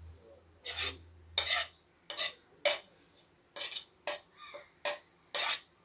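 Steel spoon scraping and knocking against a ceramic plate in about eight short, separate strokes, pushing crumbly khoya off the plate into a bowl.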